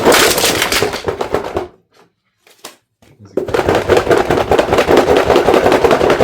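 Box packaging being torn and handled: a dense, rapid crackling rattle. It stops for over a second about two seconds in, then starts again.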